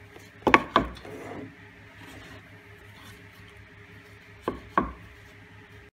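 A round fibreboard disc handled on a wooden workbench: two pairs of short knocks, about half a second in and again near the end, with light rubbing between, over a faint steady hum.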